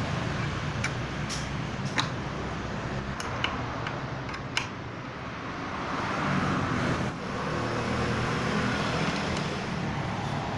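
A machine running steadily with a low hum, with a few short clicks about two, three and a half, and four and a half seconds in.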